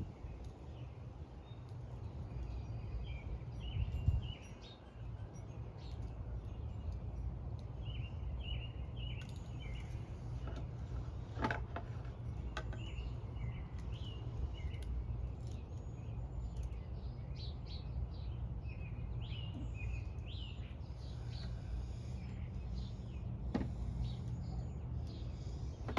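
Wild birds chirping and calling again and again, short high notes, over a steady low rumble. A few sharp clicks stand out around the middle and near the end.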